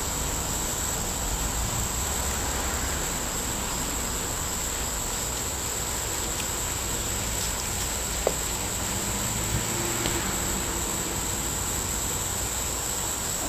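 A steady, high-pitched chorus of crickets, with a low rumble in the first few seconds and a few faint clicks of twigs being handled.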